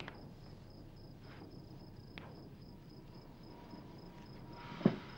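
Crickets chirping steadily in a high, even pulse of about four chirps a second. A single sharp click sounds near the end.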